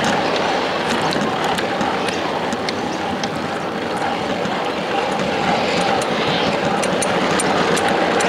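Ride-on miniature railway train rolling along the track: a steady rumble of wheels on rails with scattered light clicks.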